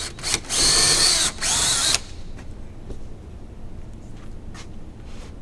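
Cordless drill running as it bores a hole into a wall for about two seconds, with a brief dip partway through, then stopping.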